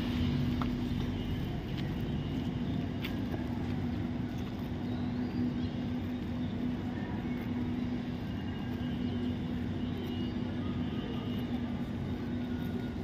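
Outdoor street ambience: a steady low hum, like an engine or generator running, under a wash of traffic noise, with a few faint clicks.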